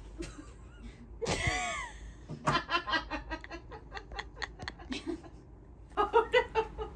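Quiet, held-in giggling from one person: a pitched laugh sound gliding up and down about a second in, then a run of quick short snickers, and another burst of laughter near the end.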